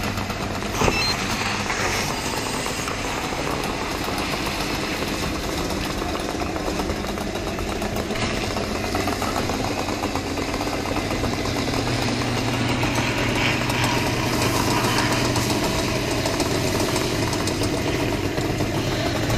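An engine running steadily at a structure fire. Its low drone strengthens a little about twelve seconds in, and there is a single short knock about a second in.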